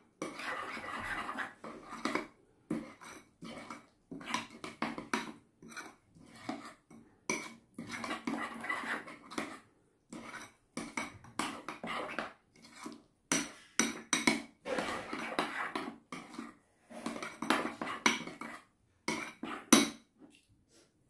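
Metal spoon stirring a thick chili-paste sauce in a bowl, clinking and scraping against its sides in uneven bouts with short pauses.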